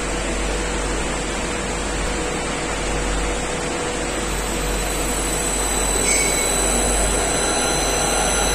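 Three-phase induction motor started from a Fuji Electric FRENIC-Ace variable-frequency drive. About halfway through, a steady high-pitched whine from the drive's switching sets in over a constant hiss, and the sound grows slowly louder as the motor ramps up in speed.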